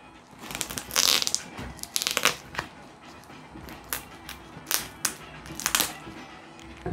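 A knife slicing through packing tape on a cardboard box, in about six short scraping rips, the loudest about a second in.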